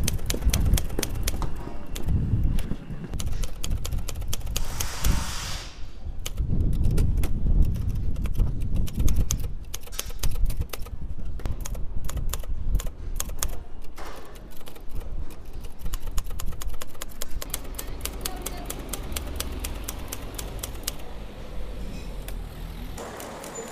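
Typewriter keys striking in quick, irregular runs of sharp clicks.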